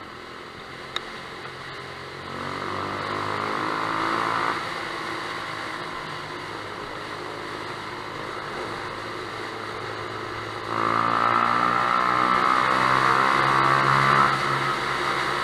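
Yamaha YBR 125's single-cylinder four-stroke engine breathing through a Lextek stubby aftermarket exhaust, ridden inside a road tunnel. It pulls up in pitch and loudness about two seconds in, eases off, runs steady, then opens up louder again about eleven seconds in before easing near the end.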